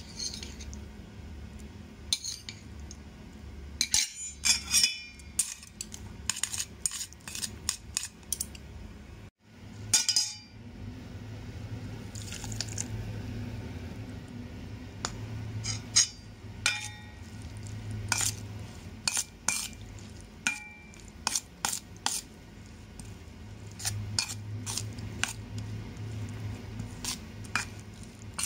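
Chopsticks, then a metal spoon, clinking and scraping against a stainless steel bowl as chopped squash and egg are stirred: irregular clinks, some with a short metallic ring, over a low steady hum.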